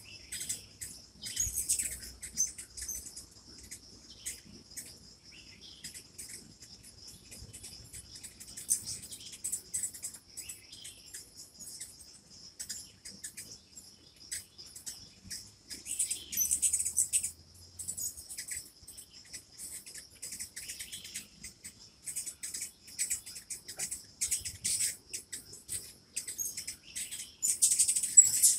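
Hummingbirds giving rapid, very high squeaky chips in scattered flurries, busiest in the middle and near the end, over a steady high insect trill.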